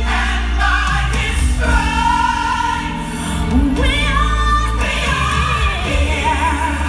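Gospel music: a choir singing with vibrato over a steady, heavy bass line.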